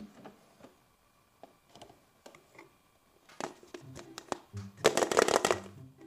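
A plastic toy microwave door clicks open, then a hollow plastic surprise egg is lifted out and handled, giving scattered plastic clicks that build to a dense burst of clattering and rubbing about five seconds in.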